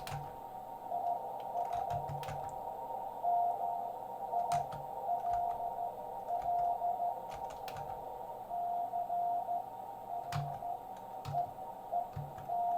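Morse code (CW) from another amateur station, heard through a ham radio receiver on 40 meters: a single beep tone keyed into dots and dashes over receiver hiss. There are a few sharp clicks now and then.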